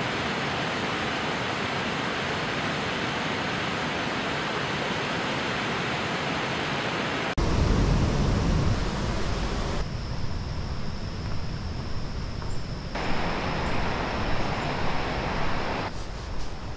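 Steady rush of water pouring over a mill dam spillway and churning in the pool below. About seven seconds in it cuts abruptly to a louder, uneven low rumble, with the water's rush fainter and fading in and out.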